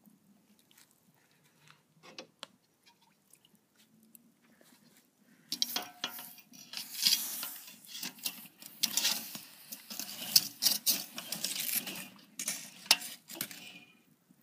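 Axe head being pushed and scraped through the hot coals of a metal fire pit: a dense run of scraping, crunching and metallic clinking that starts about five seconds in and dies away near the end. Before it there are only faint crackles and ticks from the wood fire.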